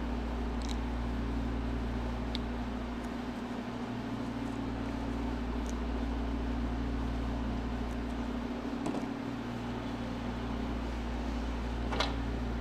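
Steady mechanical hum of a running fan-like machine, with a few faint clicks and taps from handling spark plug wires, the sharpest near the end.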